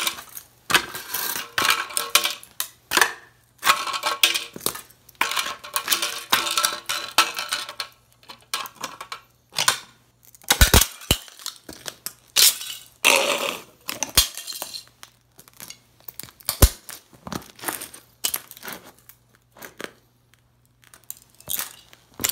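Heavy lace-up boots stomping on and crushing the wreckage of an old tube radio: dense crunching, cracking and clattering of broken wooden cabinet and plastic parts, then fewer, separate sharp stomps and scattered debris in the second half.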